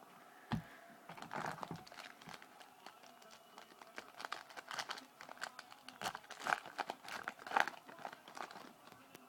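Trading-card pack wrapper crinkling and cards being handled: a run of irregular crackles and ticks, with a soft thump about half a second in.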